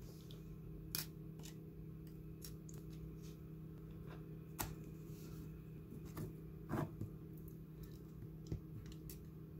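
Irregular small clicks and taps as fingers press on an opened iPad Air 2's replacement battery and its cable connectors, with a double click a little before 7 seconds in, over a steady low hum.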